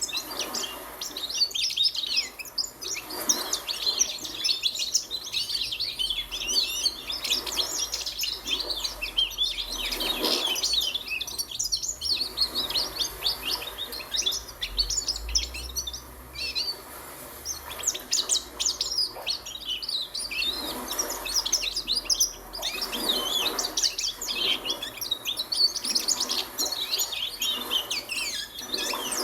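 Young goldfinch practising its song: a long, rambling run of rapid high twittering and warbled notes, pausing only briefly a few times.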